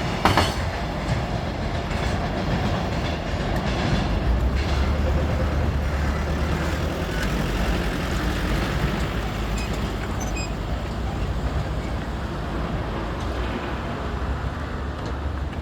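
Freight train wagons rolling past. Wheels click over rail joints at the start, then a steady rumble that eases slightly near the end.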